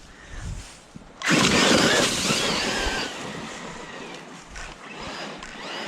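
Electric RC side-by-side (Losi RZR Pro R) pulling away. About a second in, its motor's whine starts suddenly, wavering in pitch over the hiss of tyres scrabbling on the ground, then eases off.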